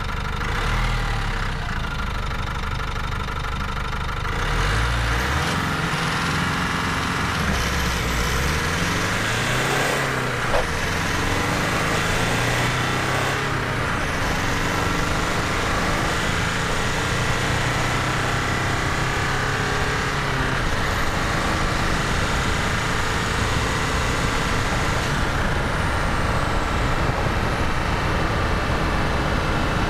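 Nissan Navara NP300's 2.3-litre twin-turbo diesel accelerating hard from a standstill to 100 km/h. The revs climb and drop back at each upshift, several times in the first half, then it pulls steadily in a higher gear.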